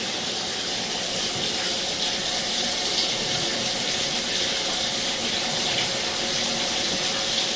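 Water running steadily in the plumbing after a toilet flush, a constant rushing sound.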